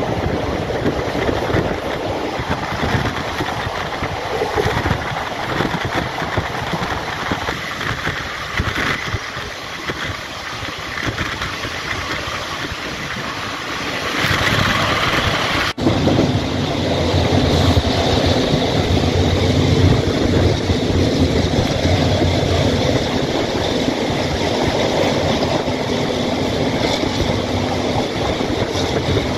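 Running noise heard from inside a carriage of the diesel-hauled Blue Train: a steady rumble of the train on the track, mixed with wind from the open window. About 16 seconds in the sound breaks off for an instant. After that it is a little louder, with a steady low hum under it.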